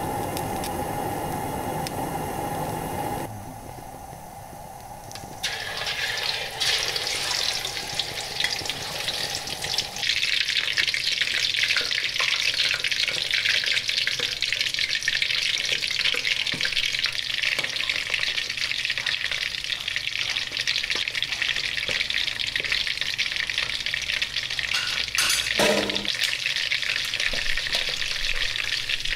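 Cooking oil poured from a plastic bottle into a metal wok, then a whole duck frying in the hot oil. The frying is a steady sizzle that starts about five seconds in and grows louder about ten seconds in, with a short knock near the end.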